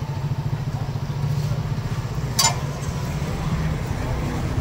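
Steady low engine rumble, like an idling motor, with a single sharp metallic clink about halfway through.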